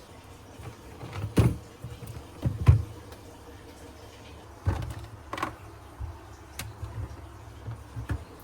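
A string of irregular knocks and clunks from refrigerator parts being handled, the two loudest about one and a half and two and a half seconds in, over a low steady hum.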